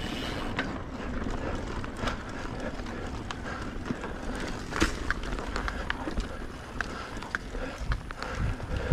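Mountain bike rolling fast down a dirt and rock trail: steady tyre noise with the bike rattling and knocking over bumps. The sharpest knock comes about five seconds in, with a cluster more near the end.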